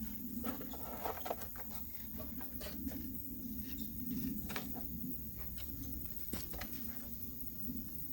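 Scattered light clicks, taps and rustles at an irregular pace over a low steady hum.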